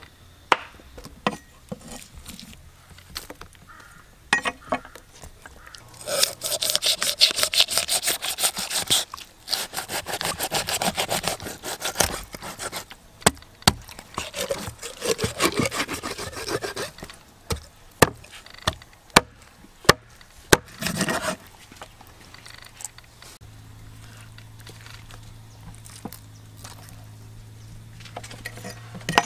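A cleaver working through a large raw fish: fast, even rasping strokes for several seconds, then a few sharp chopping knocks.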